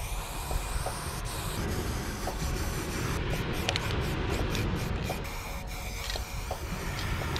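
Aerosol spray paint can hissing as paint is sprayed onto a concrete wall, cutting in and out several times in quick succession around the middle, over a low rumble of wind on the microphone.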